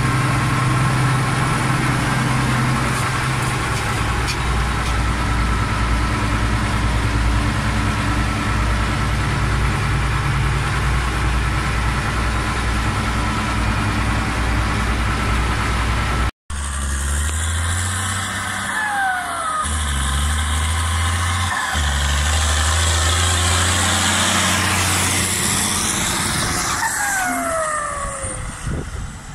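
Tractor engine running steadily, heard from inside the cab. About sixteen seconds in it cuts off abruptly, and a different machine drone follows whose low pitch shifts in steps, with two brief falling whistles before it fades near the end.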